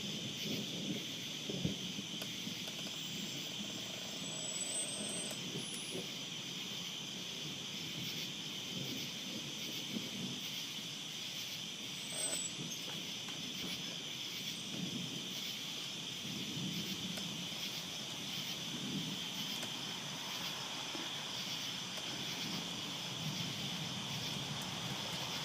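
Steady chorus of night insects chirring without a break, with a faint low rumble coming and going underneath.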